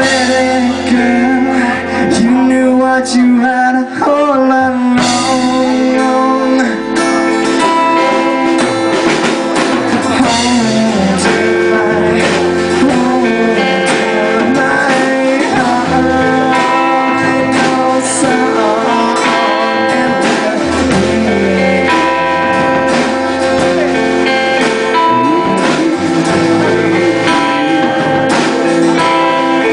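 A live band plays an instrumental passage between sung lines, led by guitar, with bass and percussion.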